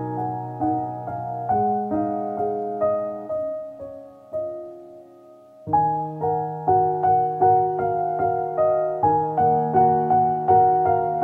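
Gentle solo piano music, a flowing run of repeated notes. It thins out to one soft note about four seconds in, then picks up again fully just before six seconds.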